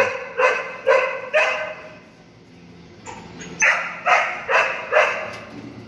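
Dog barking on guard in two runs of about four sharp barks each, with a pause of about two seconds between them, the alarm barking of a dog reacting to a neighbour working on a roof.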